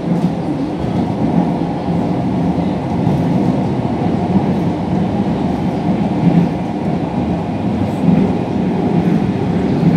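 Rome Metro C driverless train running through a tunnel, heard from inside the carriage as a loud, steady running noise of wheels and motors.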